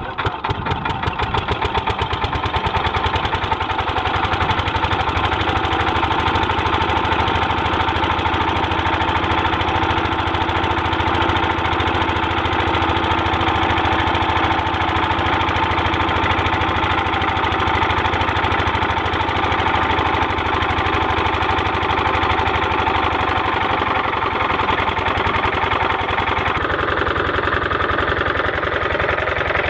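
8 hp diesel engine driving a bore-well water pump, coming up to speed just after being hand-cranked, then running steadily with a rapid, even knock of its firing strokes. The pump is delivering water.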